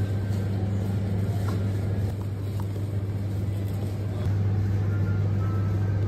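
Steady low hum and rumble of a supermarket's refrigerated display cases, a little louder from about four seconds in.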